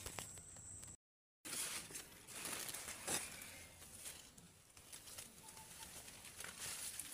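Faint rustling and crinkling of dry maize leaves and stalks, in irregular bursts. The sound cuts out briefly about a second in.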